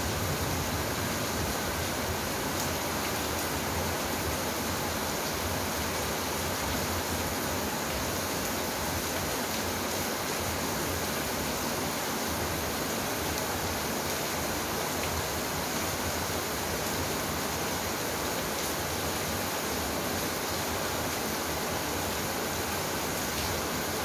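Steady rain falling, an even unbroken hiss, with a faint tick from a drop now and then.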